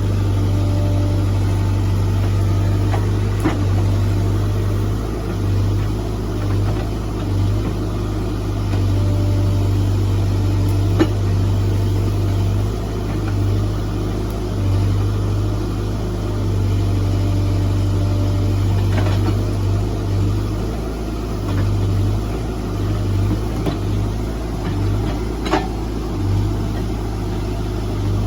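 Diesel engine of a heavy machine running steadily, its note swelling and easing as it works, with a couple of sharp knocks.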